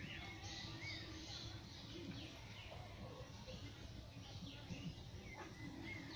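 Faint, scattered bird chirps and short calls over a low, steady background rumble.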